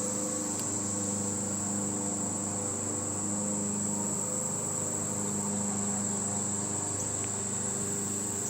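Honey bees buzzing around an open hive: a steady drone of many overlapping wing tones that drift slightly in pitch. A thin, constant high-pitched whine sits above it.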